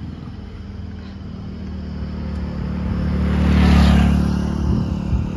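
A motor vehicle's engine grows louder as it approaches, peaks about four seconds in as it passes, then fades.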